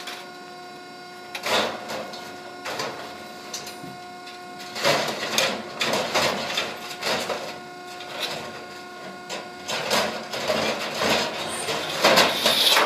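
Electric-over-hydraulic power unit of a portable scrap baler humming steadily, under irregular metallic clatter and crashes of copper roofing scrap being handled and thrown in, loudest about five to seven seconds in and near the end.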